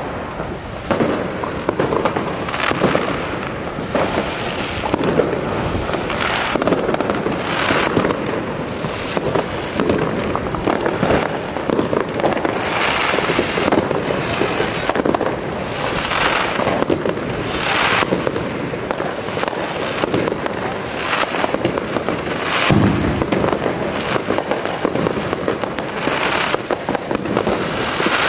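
Many fireworks going off at once: a dense, unbroken barrage of bangs and crackles.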